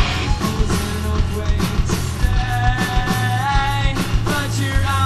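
Post-hardcore rock band playing live: drums striking steadily over heavy bass and guitars, with a held, bending melody line in the middle of the passage.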